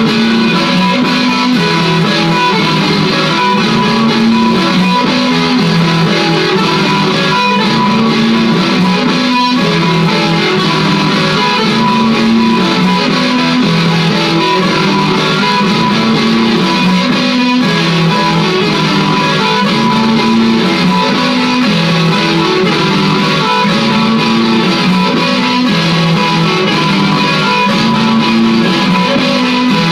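Gretsch Electromatic electric guitar played through a looping pedal: layered guitar phrases that repeat in a steady loop.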